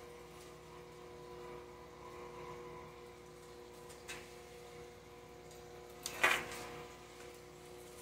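Steady hum of an aquarium air pump and the bubbles it drives, holding a couple of steady tones. A short click comes about four seconds in, and a louder, brief rustle just after six seconds.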